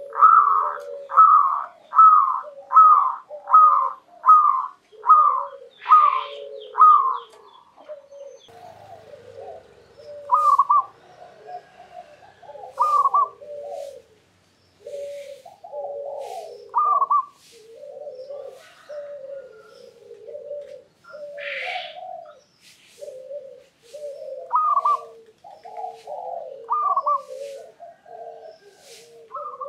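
A zebra dove (perkutut) cooing its song. There is a quick even run of about ten rolling coos in the first seven seconds, then slower, more spaced phrases of low coos with higher notes every few seconds.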